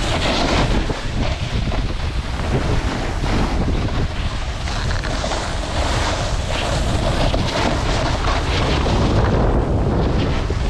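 Wind rushing over the microphone of a camera carried by a snowboarder riding downhill, with the steady hiss and scrape of a snowboard sliding over packed, groomed snow.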